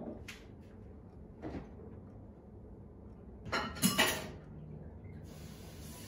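Kitchen handling sounds: dishes and a cupboard knocked and clinked at the counter, a few separate knocks with the loudest cluster of clatter about three and a half to four seconds in. Background music sets in near the end.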